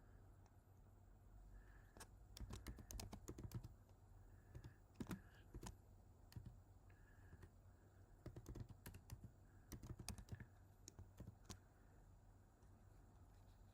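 Faint computer keyboard typing and clicking, sharp clicks in scattered bursts, over a faint low hum.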